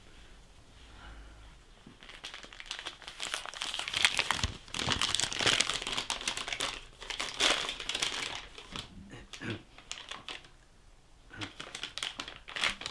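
A crumpled sheet of paper being unfolded and handled close to a microphone, crinkling. It starts about two seconds in, pauses briefly near the end, then starts again.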